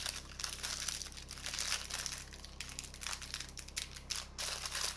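Packaging crinkling and rustling as it is handled, a dense run of quick crackles.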